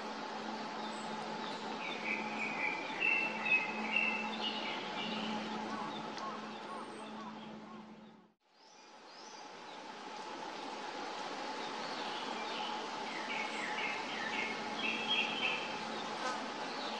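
Distant Japanese thrush singing in short phrases, heard under a steady hiss and hum raised by amplifying the recording. The sound fades out to silence a little past the middle, then fades back in with a second stretch of song.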